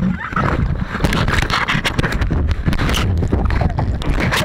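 Handling noise from an action camera being gripped and moved by hand: a steady rumble of fingers rubbing over the microphone, broken by many small knocks on the housing.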